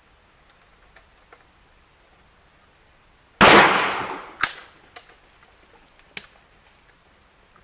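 A single shotgun shot firing a slug, about three and a half seconds in, its echo dying away over about a second, followed by a few sharp clicks and knocks.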